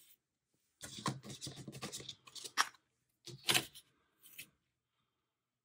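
Washi tape and planner paper being handled: about a second and a half of scratchy rustling and rubbing as the tape is pressed onto the page, then two short scratchy tearing sounds about two and a half and three and a half seconds in.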